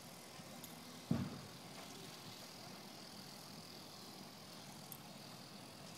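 Faint steady outdoor background hiss, with a single low thump about a second in.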